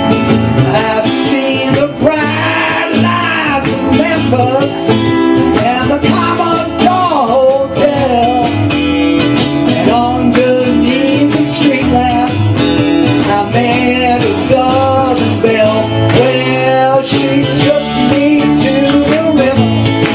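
Live acoustic band playing a country-rock song: several strummed acoustic guitars, with a voice singing over them from about two seconds in.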